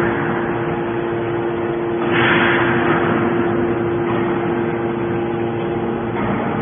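Hydraulic scrap baler running with a steady hum. About two seconds in a hissing rush swells and fades over a couple of seconds.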